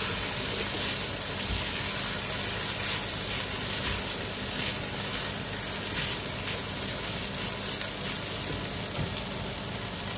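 Vegetables and shredded chicken sizzling in a hot pan, a steady frying hiss. A few faint knocks of the spoon come through as it is stirred.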